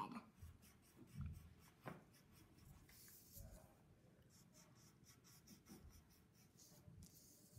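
Faint scratching of a coloured pencil drawing on a sheet of paper, in short separate strokes, with a few soft bumps.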